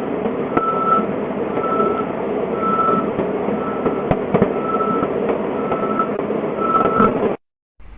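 Heavy vehicle's reversing alarm beeping a single tone a little faster than once a second over a steadily running engine, with a few knocks. The sound cuts off suddenly near the end.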